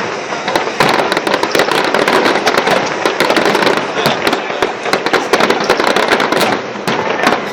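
Fireworks and firecrackers going off in a dense barrage: many rapid, overlapping bangs and crackles with no pause.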